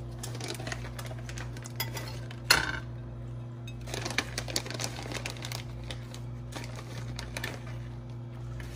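Dishes and a utensil clinking and tapping lightly against a ceramic bowl, with one sharper clink about two and a half seconds in, over a steady low hum.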